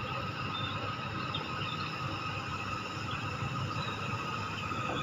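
Hitachi amphibious excavator's diesel engine running steadily under load, with a steady high whine over the engine note.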